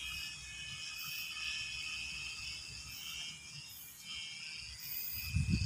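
Insects chirring in steady, pulsing high trills over the rice fields. Near the end a loud low rumble starts.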